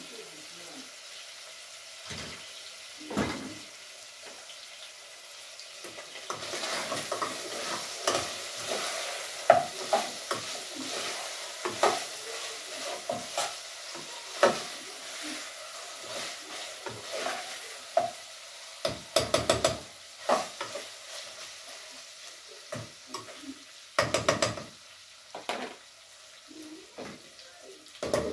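Pieces of meat frying and sizzling in a pot, the sizzle coming up as the lid is lifted at the start. A utensil stirs and scrapes the meat, clicking against the pot, with two quick runs of knocks in the second half.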